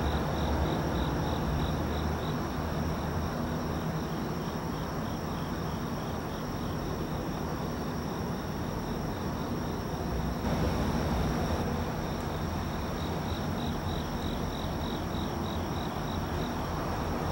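Crickets chirping in a rapid, steady pulse, fading in the middle and coming back near the end, over a steady high insect drone. Underneath is the low, steady rumble of distant diesel locomotive engines.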